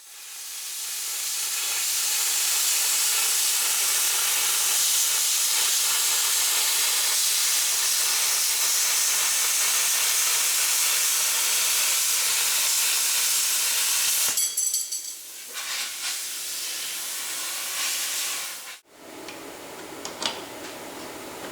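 A loud, steady hiss. About 14 seconds in it turns rougher and fluttering, then it cuts off sharply near 19 seconds and gives way to a quieter, lower rushing noise.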